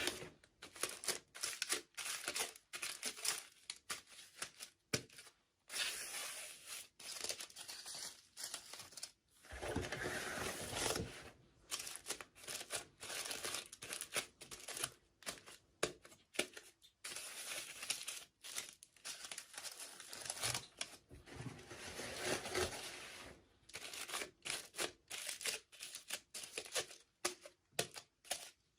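Toy packaging being crinkled and torn open by hand in an unboxing, in irregular short bursts with brief pauses.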